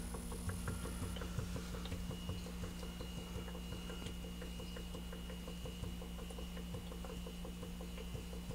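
Rapid, continuous bubbling of CO2 from a vigorously fermenting beer, pushed through a blow-off tube into a container of Star San solution, with many small pops each second. A steady low hum runs underneath.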